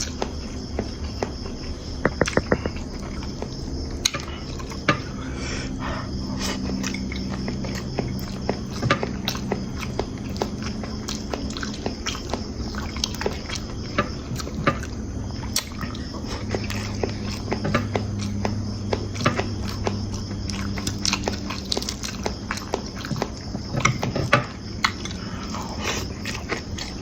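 A person eating chicken fried rice: chewing, and a spoon clicking and scraping against the plate in irregular little knocks, over a steady low hum.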